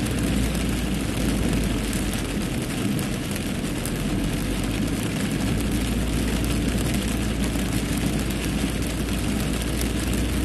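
Car driving through deep standing flood water in a heavy downpour, heard from inside the cabin: a steady rush of tyre spray and rain hitting the bodywork and windscreen over a low engine rumble.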